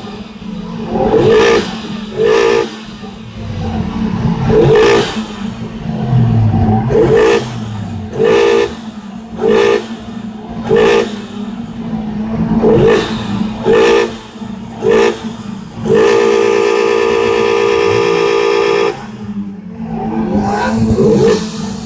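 Car horn honking in short blasts, about a dozen at roughly one a second, then held for about three seconds near the end, over a steady low hum.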